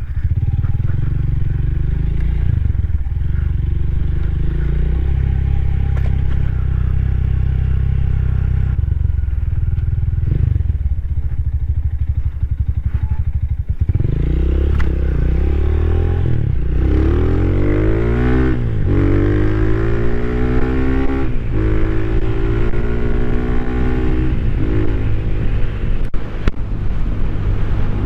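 Rusi Classic 250's single-cylinder LX166FMM engine running at a steady low speed, then from about halfway accelerating, with the pitch rising and dropping back several times as the rider shifts up through the gears.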